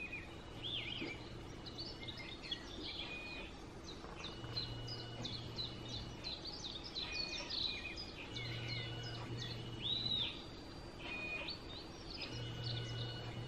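Small birds chirping and singing in quick, overlapping phrases, played from a nature video through a smartphone's speaker. A low hum comes and goes underneath about every four seconds.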